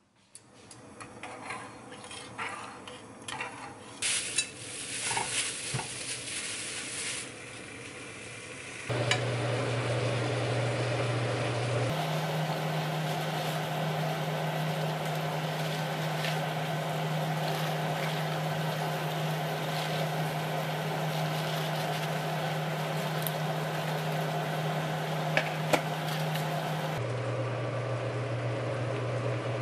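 Kitchen cooking sounds: for the first several seconds, sizzling with scattered utensil clicks and clatter. From about nine seconds on, a loud steady rush with a low hum, from a saucepan of water at a rolling boil on a gas hob and the kitchen running around it.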